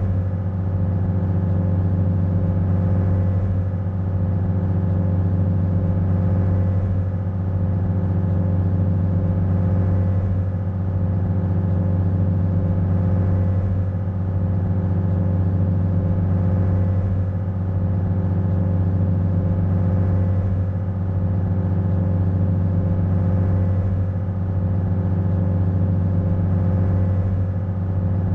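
Cable ferry's engine running steadily under way, a deep even hum with a slight swell and dip about every three to four seconds.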